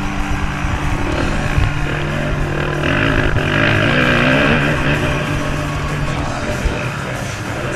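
Rock music with electric guitar, mixed with a dirt bike engine revving up and down.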